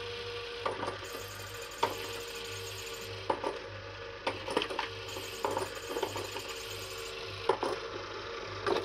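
JML Pop n Play motorised cat toy running: its battery motor hums steadily inside the plastic dome while the spinning mechanism clicks and knocks at irregular intervals, roughly once a second.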